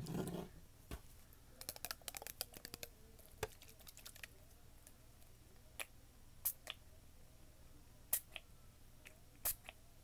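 Handling of a plastic fragrance-mist spray bottle: scattered soft clicks and taps, a quick run of them about two seconds in, and a few short spritzes from its pump nozzle.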